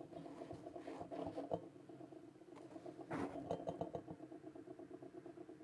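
A faint, steady low buzzing hum that flutters rapidly: an unwanted noise in the microphone feed. A couple of soft knocks come from the microphone being handled, about a second and a half in and again about three seconds in.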